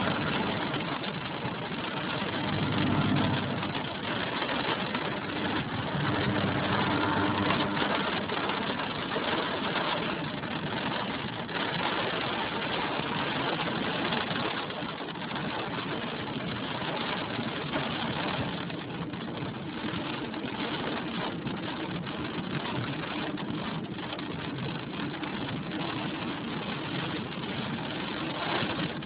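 Inside a car driving through a rainstorm: the engine runs under a steady hiss of rain and tyres on the wet road. A deeper engine hum swells twice in the first eight seconds.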